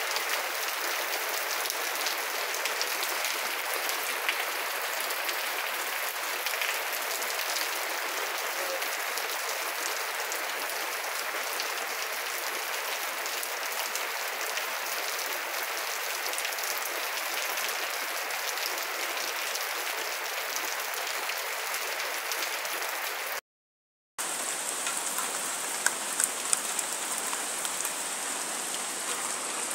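Steady rain falling: a dense, even hiss with many fine drop ticks. The sound cuts out briefly about 23 seconds in, then the rain resumes with a few louder, sharper drop taps near the end.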